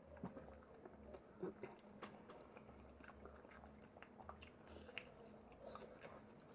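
Faint chewing with scattered small clicks and cracks from people eating crab legs and lobster, over a faint steady low hum.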